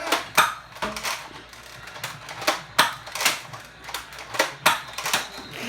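Irregular sharp clicks and snaps, about ten spread unevenly, from foam-dart Nerf blasters being cocked and fired.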